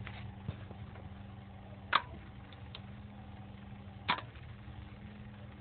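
Small generator run as a motor on two AA batteries, spinning a homemade fan with a steady low hum. Two sharp clicks come about two seconds in and again about four seconds in, with a few faint ticks between.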